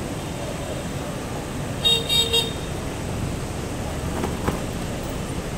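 A vehicle horn gives two short toots about two seconds in, over a steady hum of street traffic.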